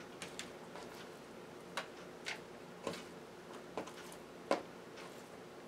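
Scattered faint clicks and taps at an irregular pace as raw chicken strips are handled and moved between a clear plastic tray and a black plastic container, over a faint steady hum.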